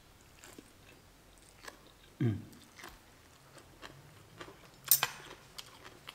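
Close mouth sounds of a man chewing a mouthful of spicy salad with raw greens: small wet clicks and smacks, a short falling hum about two seconds in, and one sharp click near five seconds in.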